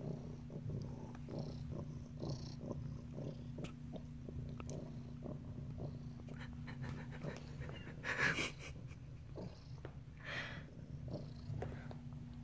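Domestic cat purring steadily and close, in even pulses. A brief rustling noise about eight seconds in, and a smaller one about two seconds later.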